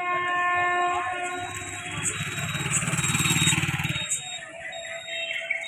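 A horn sounds suddenly for about a second and a half as one steady pitched tone, followed by about two seconds of loud, low, pulsing engine rumble.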